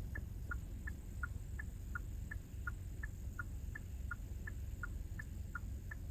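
Rapid, even ticking, about three ticks a second, alternating a higher and a lower tick like a tick-tock, over a steady low rumble.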